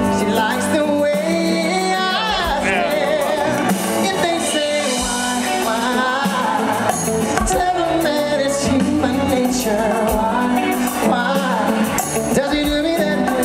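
Music with a singing voice over instrumental accompaniment, at a steady, loud level.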